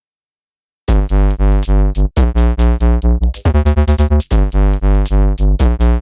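Electronic intro music with a heavy pulsing bass beat and synthesizer chords, starting about a second in after a moment of silence.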